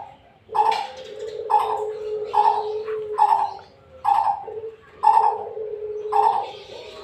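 Coucal calling: a run of deep, repeated hooting notes, about one a second.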